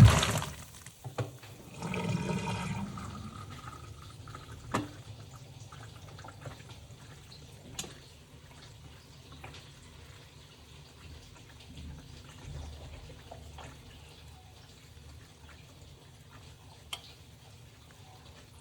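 Top-loading washing machine with water sloshing in the tub, loudest at the start and again about two seconds in. It then settles to a faint trickle with a few drips and light clicks.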